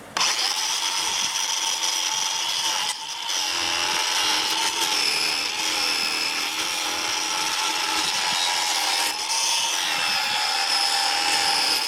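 Angle grinder fitted with a chainsaw-chain carving disc, running with a steady high whine and cutting into wood. It dips briefly about three seconds in, then runs on with the pitch wavering slightly under load.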